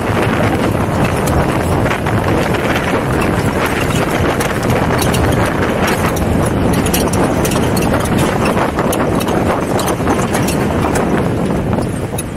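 Jeep driving over rough, rocky ground: a loud, steady rumble of wind and running gear, with frequent sharp clicks and knocks from stones under the tyres.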